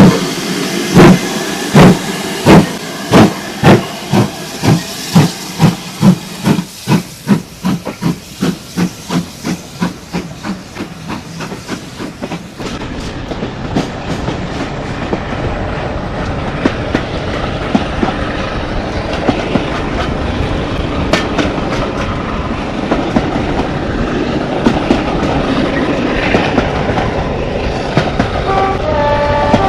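Steam locomotive exhaust beats, chuffing faster and fading as the engine gets away, typical of a GWR 2-8-0 tank starting its train. Then the steady rumble of a train running on the rails, with scattered clicks.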